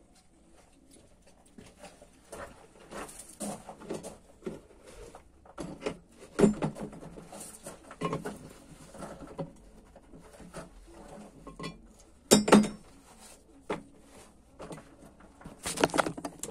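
Irregular metallic clinks, taps and scrapes of gloved hands working pliers against metal pieces on a workbench. Sharper knocks come about six and a half seconds in and twice around twelve seconds, with a cluster of handling knocks near the end as the phone filming is grabbed.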